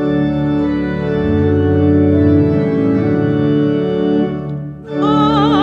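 Organ playing sustained chords, leading into the sung Great Amen after the Eucharistic Prayer's doxology. About five seconds in, a singer with a strong vibrato comes in over the organ.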